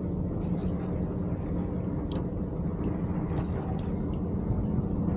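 Boat's outboard motor idling with a steady low hum, with a few short faint clicks over it.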